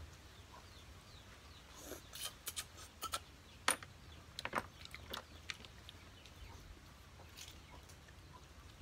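Scattered sharp clicks and clinks of sea snail shells being handled and knocked against plates and bowls while the meat is picked out, loudest around the middle.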